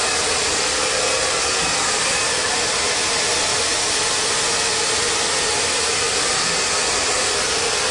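A hair dryer running steadily at one constant pitch.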